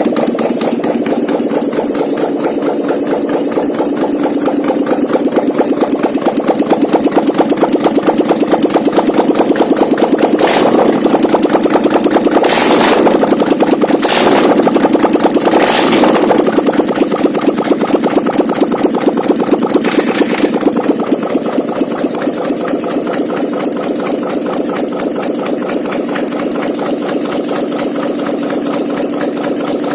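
Chinese-made 800cc V-twin ATV engine, converted from fuel injection to run on a Harley-Davidson carburettor, running at idle on a test run with a steady, rapid pulsing beat. Several brief noisy bursts cut in over it about a third to two thirds of the way through.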